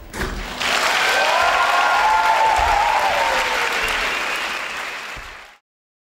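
Audience applauding and cheering, with a long whoop falling in pitch above the clapping. It starts about half a second in and cuts off suddenly near the end.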